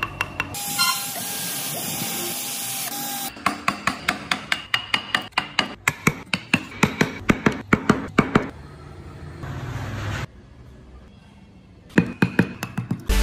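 Hand carving tools tapped into wood by hammer, in runs of sharp taps, each with a short ring, about four a second. A stretch of steady hiss breaks them up a second or so in.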